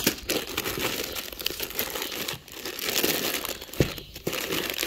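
Plastic bags holding wiring harnesses crinkling and rustling as a hand rummages through them in a foam-lined box, with scattered small clicks.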